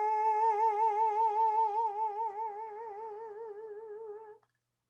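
A woman's voice holding the final sung note of a song, unaccompanied, with a vibrato that widens as the note fades, ending about four and a half seconds in.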